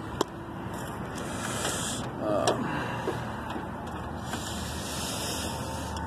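Multimeter test probes being handled and pressed onto a small fan motor's terminals: a sharp click shortly after the start and another about two and a half seconds in, with rustling, over steady background noise.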